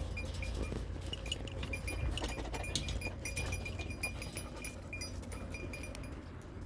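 Many quick metallic clinks and tinkles, like small bells ringing irregularly, over a steady low rumble.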